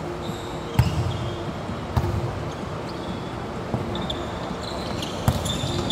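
A volleyball being hit back and forth in a rally on an indoor court: three sharp smacks, about a second in, at two seconds and near the end, echoing in a large arena, with short sneaker squeaks on the court floor between them.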